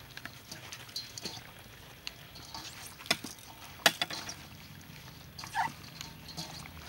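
Wet squishing and slapping of raw chicken wings being tossed by gloved hands with chopped chili marinade in a stainless steel bowl, with two sharp clicks a little past the middle. A chicken calls briefly in the background about two-thirds of the way through.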